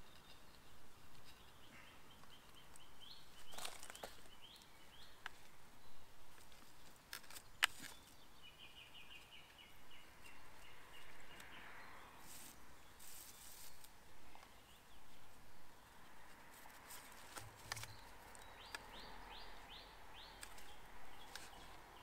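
Faint woodland birdsong: short runs of quick high chirps and a trill, with light rustling and a few sharp clicks from wooden poles being handled, one knock louder than the rest about a third of the way in.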